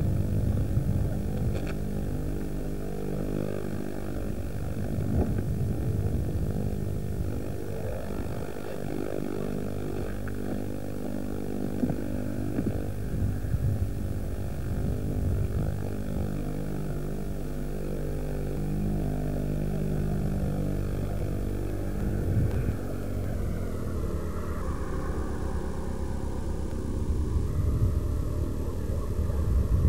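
Engine of a moving car droning steadily, with road and tyre rumble underneath.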